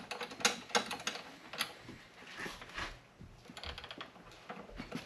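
Small metal bolts clicking and clinking together as they are handled, a quick run of clicks in the first second and a half, then scattered lighter ticks.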